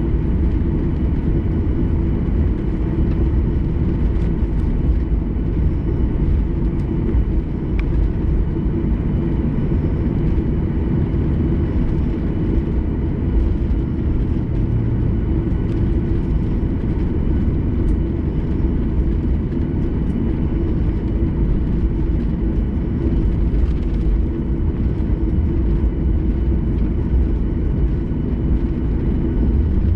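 Boeing 737's CFM56 turbofan engines running steadily as the airliner taxis, heard from inside the cabin as an even low rumble with a steady hum over it.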